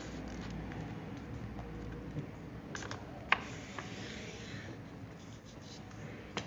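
A sheet of paper being folded and pressed flat by hand on a plastic desk mat: soft rustling and scraping, with a few sharp clicks, the loudest just over three seconds in.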